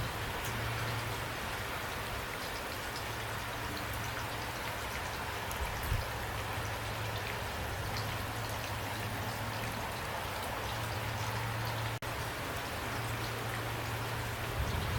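Steady rain falling, with individual drops ticking sharply here and there over an even hiss and a steady low hum beneath. A dull thump about six seconds in, and a momentary drop-out about twelve seconds in.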